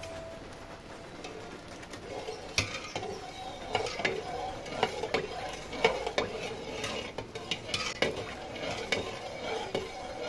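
Metal spoon stirring a drink in an aluminium pot, clinking irregularly and often against the pot's sides from about two and a half seconds in.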